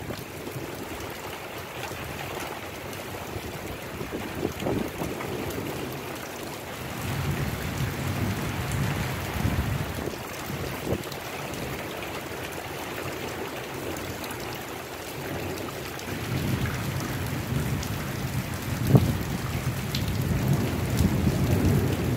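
Thunderstorm: steady rain with low rumbles of thunder swelling and fading twice, and a single sharp tap a few seconds before the end.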